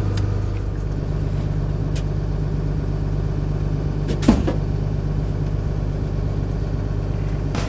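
Tool truck's engine idling steadily, a low even hum. A single sharp knock about four seconds in.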